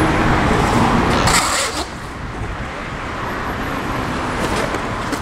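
Skateboard wheels rolling over concrete in a steady rushing noise, with a louder, brighter burst about a second and a half in, after which it settles a little quieter.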